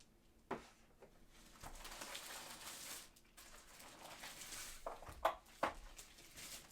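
Faint handling sounds from a keyboard's packaging being unboxed: a stretch of rustling and sliding, with a sharp knock about half a second in and a few more knocks near the end.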